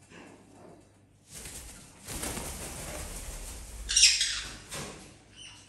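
A parrot's wings flapping hard in flight, a dense whooshing rush of wingbeats that builds up and peaks in a sharp loud flap about four seconds in, then dies away.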